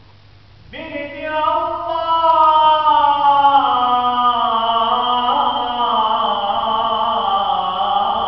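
A single man's voice enters under a second in, chanting an Islamic religious recitation in long, ornamented held notes that slide slowly downward in pitch.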